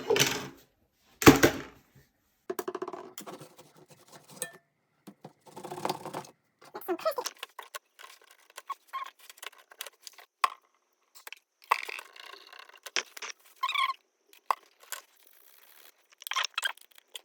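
Hands working on a laptop's disassembled parts: a sharp knock just after the start and a louder one about a second in, then a string of small clicks, taps and scrapes of plastic and metal parts.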